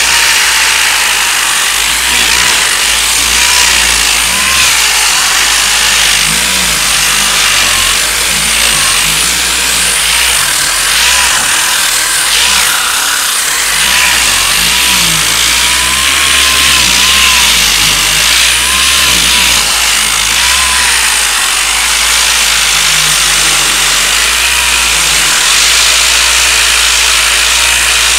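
Air-powered sander running continuously on body filler: a loud, steady hiss of exhaust air and abrasive, with a faint whine that wavers in pitch as the pad is worked across the panel.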